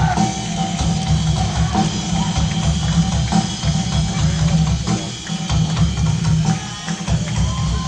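Live rock band playing, with the drum kit and bass heavy and driving and a sustained electric guitar line above.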